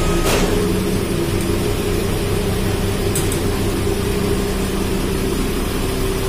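Nissan Diesel car-lifter truck's diesel engine running at a steady speed, a constant drone with a low, even hum. A short swish sounds about a third of a second in.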